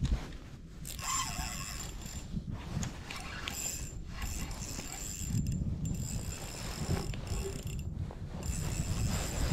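Spinning reel being cranked to wind in line, its gears whirring and clicking in stretches, over a steady rumble of wind on the microphone.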